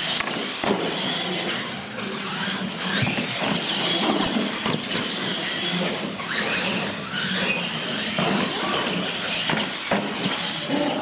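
Electric RC monster trucks of the Tamiya Clod Buster type racing flat out side by side: a steady whine of motors and gearing with tyres scrabbling over carpet and concrete, and knocks as they hit and land off ramps, one near the end.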